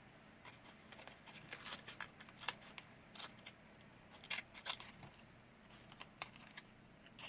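Scissors cutting paper: a string of short, irregular snips with quiet gaps between them.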